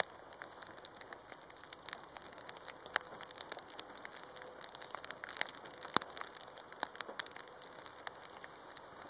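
Heavy rain: a steady hiss with many sharp, irregular drop taps, two of them, about three and six seconds in, the loudest.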